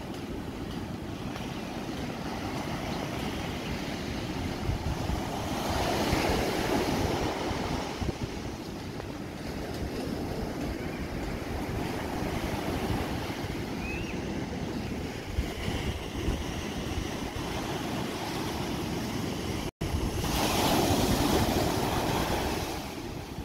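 Small waves breaking and washing up a sandy beach, with a steady wash of surf in between. The waves swell louder twice, about a quarter of the way in and again near the end, and wind buffets the microphone.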